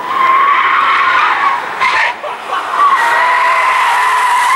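Car tyres squealing through a corner: one loud, steady squeal that breaks off briefly about two seconds in and then carries on.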